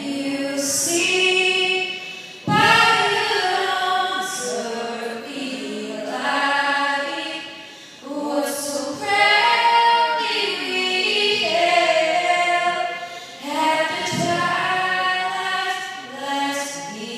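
The national anthem sung by female voices, long held notes in phrases with short pauses for breath between them.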